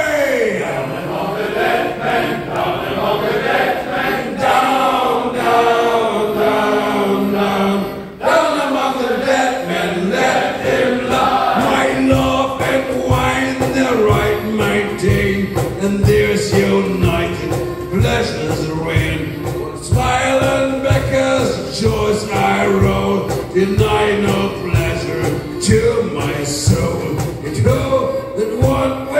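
Male shanty choir and a lead singer singing a song together, with accordion accompaniment and a steady beat.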